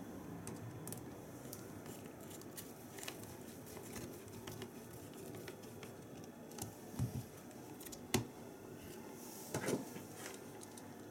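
Faint clicks and taps of hands and a Torx screwdriver working on the plastic housing of a Saab SID display unit while a screw is driven back in, with a few sharper clicks about seven and eight seconds in and again near the end.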